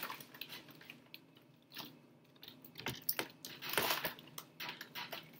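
Paper picture sheet being handled and pressed onto a whiteboard: soft rustles and small taps, quieter for about a second and a half, then a cluster of taps and rustles.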